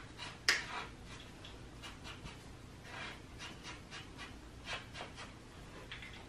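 Felt-tip magic marker scratching on paper in short, irregular colouring strokes, with one louder stroke about half a second in.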